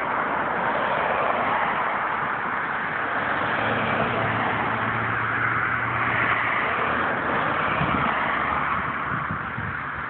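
Road traffic driving past, a steady rush of car and tyre noise, with a low engine hum from one vehicle from about three and a half to seven seconds in.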